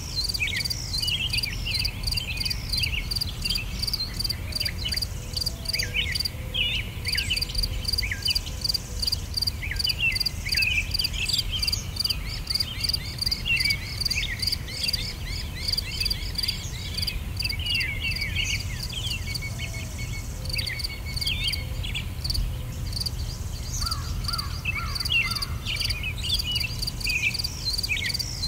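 A steady chorus of insects trilling in a fast, even pulse, with many small birds chirping short, falling notes over it and a low steady rumble underneath.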